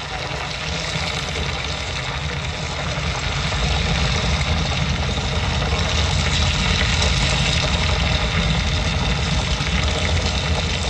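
A deep rumble with a rushing hiss, played loud through an outdoor show sound system. It swells over several seconds, holds, then starts to fade near the end.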